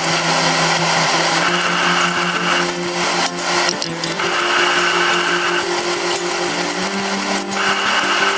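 Steady rushing noise of a commercial gas wok burner under a large carbon-steel wok, with a ladle stirring, scraping and spreading fried rice across the wok's surface in repeated strokes.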